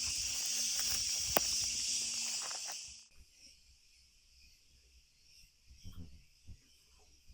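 A dense, steady chorus of insects shrilling, with a sharp click about a second and a half in. It cuts off abruptly about three seconds in, leaving a faint insect chorus and a few soft thuds.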